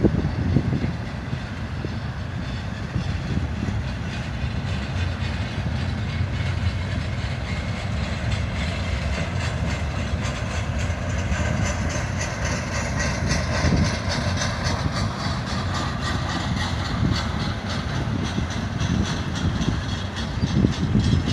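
Intermodal freight cars rolling past on the mainline: a steady rumble of steel wheels on rail with faint regular clicking.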